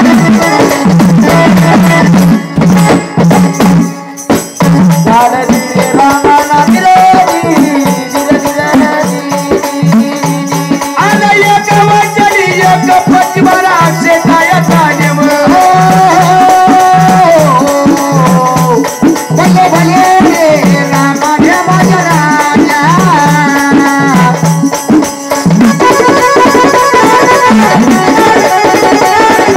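Marathi jagran-gondhal folk music: a drum keeps a steady, even beat under a jingling rattle, while a sliding melody line rises and falls above it through the middle stretch.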